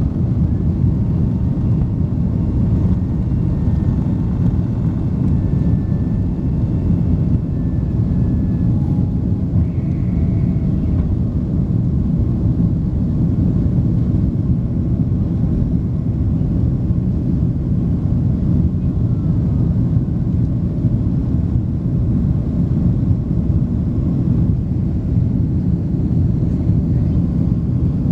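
Steady low rumble of a Boeing 767-300 jet airliner's engines and airflow during takeoff and climb.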